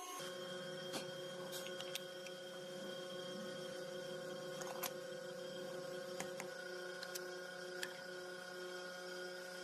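A machine tool running with a steady electric hum of several constant tones, with scattered sharp ticks during crankshaft machining.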